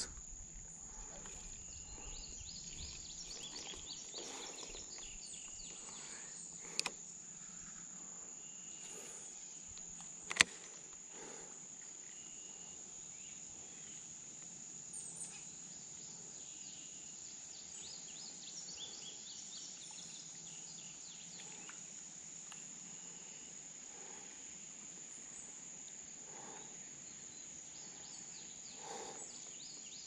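Insects droning in one steady high-pitched tone, with patches of fainter chirping. A sharp click about ten seconds in stands out as the loudest sound, with a fainter one a few seconds before it.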